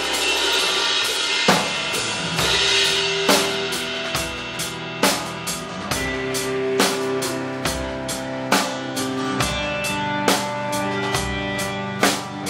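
Rock band playing live in an instrumental passage: a drum kit with kick and snare, a heavy stroke about every second and three-quarters, under cymbals, bass and sustained held chords.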